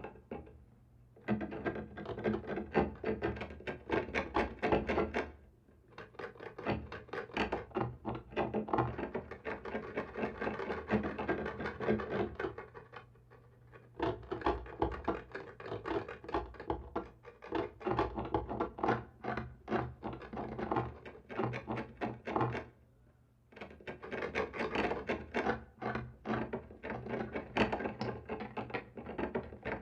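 Scratching and scraping on a wall, quick rasping strokes in several long bouts broken by short pauses.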